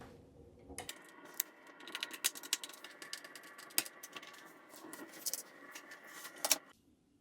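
Deadbolt lock hardware being handled and fitted: many quick metallic clicks, taps and rattles over a steady hum, all cutting off abruptly near the end.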